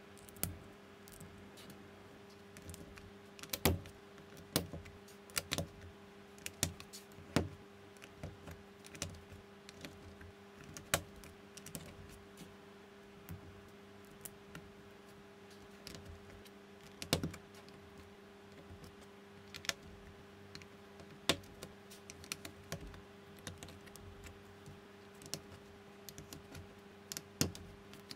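LEGO-compatible plastic bricks and plates being handled and pressed together: scattered, irregular small clicks and taps, with a few sharper snaps as pieces seat.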